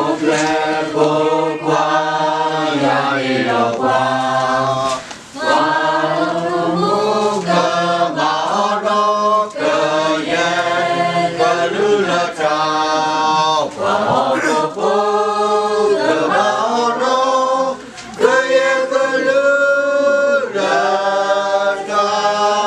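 A roomful of people singing a song together in phrases, with short breaks about five seconds in and again near the end.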